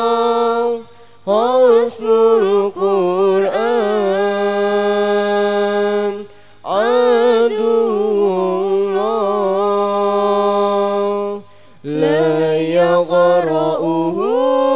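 A solo voice chanting unaccompanied in the melismatic Qur'an-recitation (tilawah) style, with long held notes and wavering turns. Short breath pauses break it about a second, six seconds and eleven seconds in.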